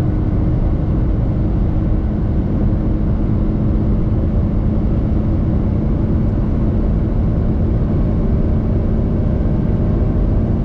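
Cabin sound of a Toyota Corolla's 1.6 Valvematic four-cylinder engine held at about 6,000 rpm near 190 km/h, a steady drone mixed with heavy wind and tyre noise. The pitch stays the same throughout.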